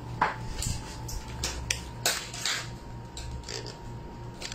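A plastic bread-marking stamp being unpacked by hand: a string of sharp, irregular plastic clicks and crackles.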